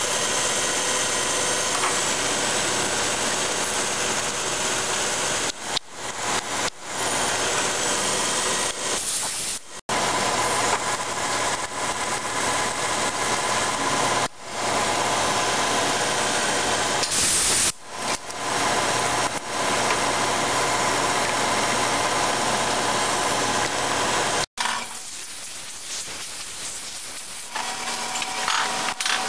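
Vertical milling machine spindle running with a drill bit boring into metal stock clamped in a vise: a steady motor whine with cutting noise, broken by a few abrupt cuts. Near the end it gives way to a quieter small belt sander motor running.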